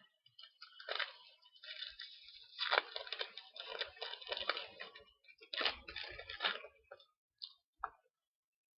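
Foil trading-card pack wrapper crinkling and tearing as it is opened, in crackly bursts lasting about six seconds.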